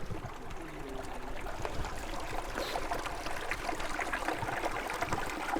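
Small mountain stream running steadily over rocks.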